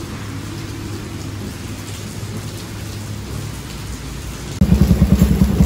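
A steady low rumble, then, about four and a half seconds in, a loud single-cylinder motorcycle engine (Keeway Klight 202) running with an even, rapid low thumping.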